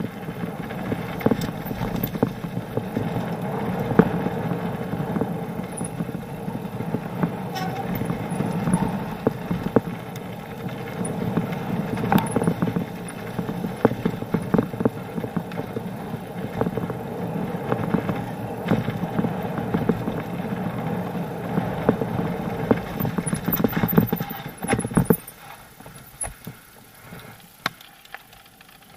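Mountain bike riding fast down a gravel trail: tyres crunching over loose stones and the bike rattling, with many sharp knocks over bumps. About 25 seconds in it goes much quieter as the bike slows, leaving only a few scattered knocks.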